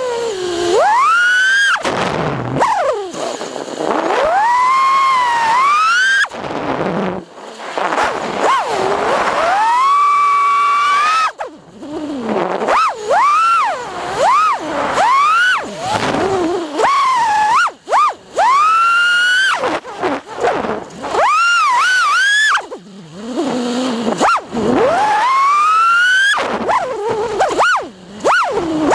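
Small FPV quadcopter's electric motors whining, the pitch sweeping up and down sharply with the throttle, with brief dips where the throttle is cut.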